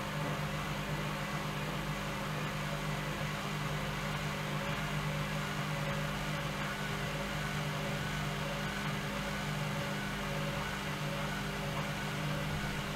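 Bauknecht WAE8575 front-loading washing machine running a quick 40°C wash, a steady motor hum with even low tones.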